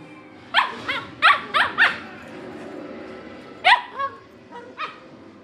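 Cavalier King Charles spaniels making high, squealing play yips, the 'monkey sounds' they make while wrestling together. A quick run of about five short yips starts half a second in, then about four more come a little past the middle.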